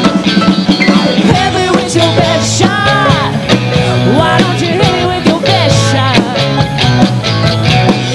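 A live country rock band playing loud, with electric guitar and drums keeping a steady beat.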